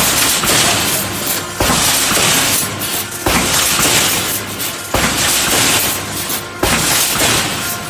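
Pneumatic resistance welding machine for reinforcing steel mesh cycling, about five weld strokes, one every second and a half or so. Each starts suddenly and is followed by over a second of loud crackling noise.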